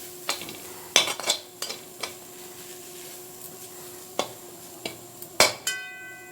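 Grated coconut being stir-fried dry in a kadai: the utensil scrapes through it and knocks against the pan now and then, over a faint sizzle. Near the end one knock leaves the pan ringing.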